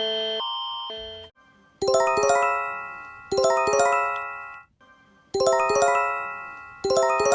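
Emergency alert tones: an alternating buzzing alarm tone fades out about a second in, then an electronic chime, a quick run of bell-like notes that ring and decay, sounds four times, roughly every one and a half to two seconds.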